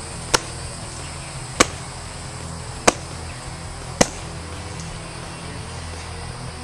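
Four sharp knocks about a second and a quarter apart: hammer strikes delivered with the blunt non-lethal kubotan end of an anodized aluminium tactical pen, hitting a target.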